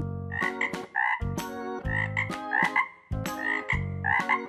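Frogs croaking: short, repeated calls coming in quick clusters, a few each second, dubbed over as a sound effect for the toy frogs.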